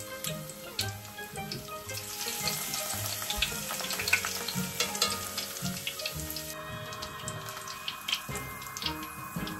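Batter-coated shiso leaves deep-frying as tempura in a pot of hot oil: a continuous sizzle full of fine crackling pops.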